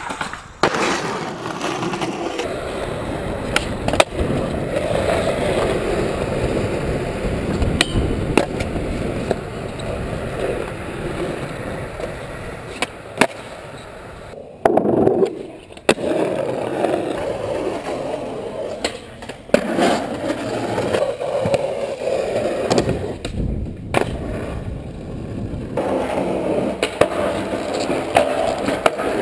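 Skateboard wheels rolling over concrete and asphalt, with sharp clacks of the board popping and landing every few seconds.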